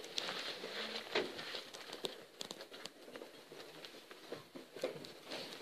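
Rustling and irregular small clicks of a handheld camera being handled and swung around.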